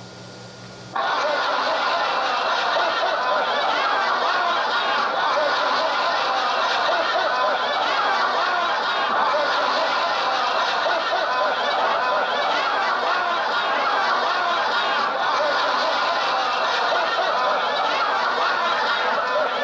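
A stereo sound-effects cassette playing on a 1976 Sony TC-520CS deck. After about a second of tape hiss and mains hum between tracks, a loud, dense, busy effect cuts in abruptly and carries on steadily.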